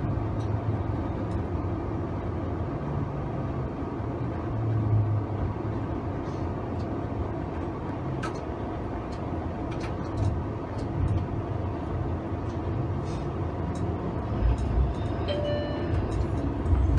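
Toronto streetcar running along its track, heard from on board: a steady low rumble and hum with small clicks and rattles. A short high tone sounds near the end.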